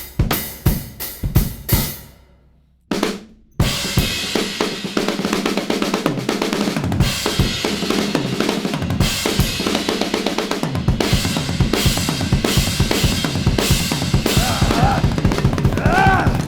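Drum kit playing: steady, evenly spaced beats that stop about two seconds in, then after a short pause come back as fast, busy drumming with rolls and cymbals.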